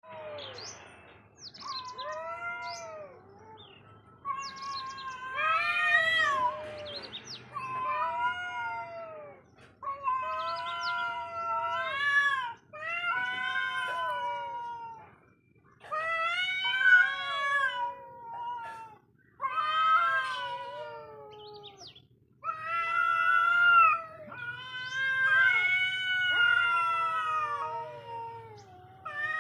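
Domestic cats yowling at each other in a standoff: a long series of drawn-out, wavering cries, each a second or two long, one after another.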